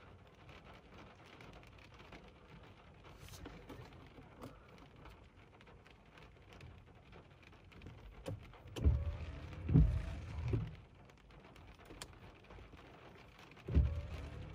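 Rain pattering with scattered drop ticks, broken by loud bursts of low rumbling about nine seconds in and again near the end.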